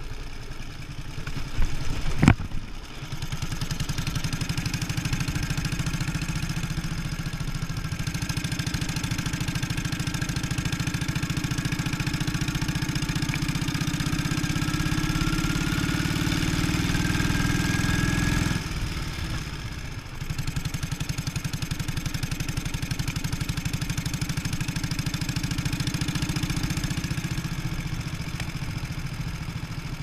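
Vintage motorcycle engine running under way, the pulse of its firing strokes steady, with a loud brief splash-like burst about two seconds in as the wheels go through the ford. The engine's pitch climbs slowly through the middle, falls away briefly about two-thirds through, then picks up again and runs on steadily.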